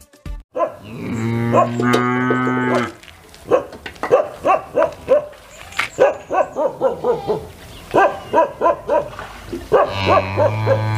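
A cow mooing in two long, low calls, the first about half a second in and the second near the end. In between, a dog barks repeatedly, a few barks a second.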